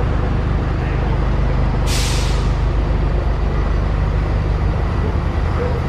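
Street traffic: a vehicle engine running with a steady low rumble, and one short, sharp hiss of air about two seconds in.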